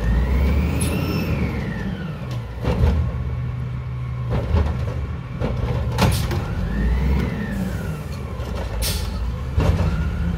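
WhiteGMC Amrep Octo automated side-loader garbage truck running its arm: the diesel engine revs to drive the hydraulics, giving a whine that rises and falls twice, while the arm and a recycling cart clank several times as the cart is lifted, emptied and set down. A short hiss of air comes near the end.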